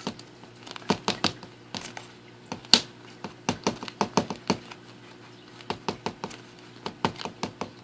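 Fingers tapping a plastic fruit fly culture cup and working at its lid: an irregular run of sharp plastic taps and clicks, a few a second in clusters, with one louder tap a little under three seconds in. The tapping knocks the fruit flies off the lid so they don't escape as it comes loose.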